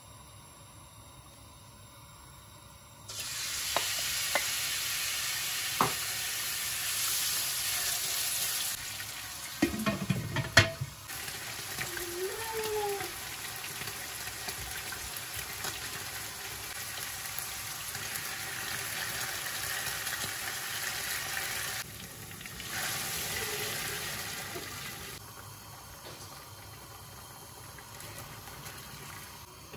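Chunks of beef sizzling as they fry in hot oil in a pot, starting suddenly about three seconds in, with a few light knocks early on and a loud clatter about ten seconds in. The sizzle changes in loudness and drops to a quieter hiss near the end.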